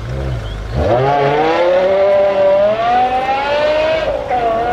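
BMW M5 E60's 5.0-litre V10 accelerating hard: a low rumble that, just under a second in, climbs steeply into a high-pitched wail, keeps rising slowly, and dips briefly near the end before holding steady.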